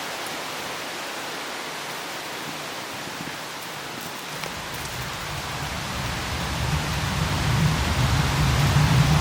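Steady hiss of distant city ambience. A low rumble builds from about halfway through and is loudest near the end.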